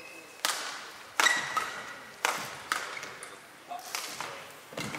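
Badminton rally: rackets striking the shuttlecock in sharp cracks, about six hits, the loudest a little over a second in. A short high squeak, such as a shoe makes on the court, follows the loudest hit.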